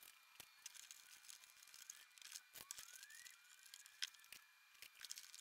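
Faint, scattered clicks and crackles of sound-deadening mat pieces being handled and pressed onto a car's inner door skin, with a few faint rising whistle-like tones in the background; otherwise close to silence.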